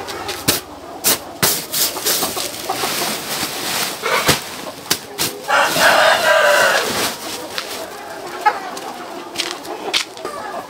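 A large flock of chickens being fattened for meat, clucking and calling, with a loud drawn-out call about six seconds in. Sharp clicks and knocks are scattered throughout.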